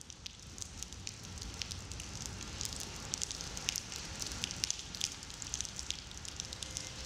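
Rain falling: a steady hiss with many sharp, separate drop ticks, growing a little louder over the first second or two.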